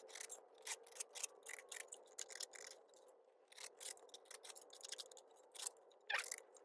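Light, irregular scrapes and clicks of a hand deburring tool drawn along the freshly cut edge of a sheet-metal fender patch panel.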